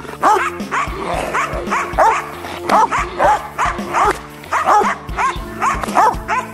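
Belgian Malinois guard dog barking repeatedly, about two barks a second, over background music.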